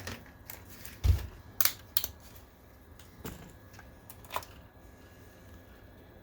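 A handful of sharp clicks and taps, with a dull thump about a second in, from hands handling tools or meter probes around the projector. Under them runs a faint steady hum, the projector's cooling fans running.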